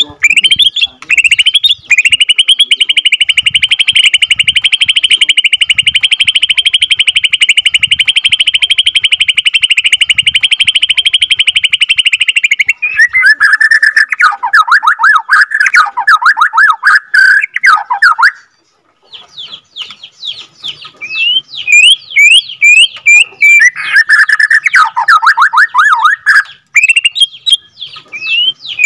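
White-rumped shama (Borneo murai batu) singing a long unbroken rapid trill, the "ngerol", for about ten seconds, then quick runs of falling notes. After a short pause it goes on with a string of sharp whistled notes and another run of falling notes.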